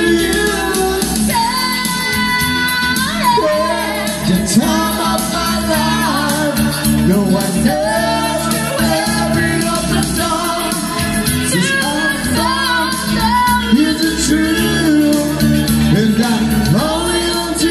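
Singing into handheld microphones over amplified backing music, a woman and a man performing a song.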